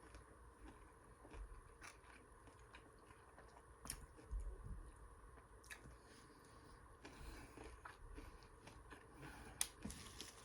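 A person chewing food, faint and irregular, with a few small sharp clicks and soft low thumps scattered through.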